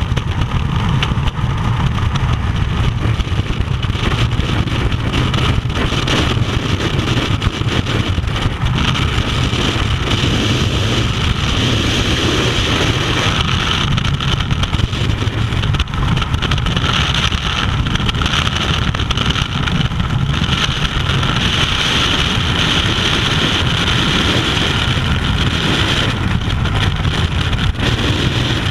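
Wind rushing over a first-person camera's microphone during a skydiving freefall: a loud, steady rush with no breaks.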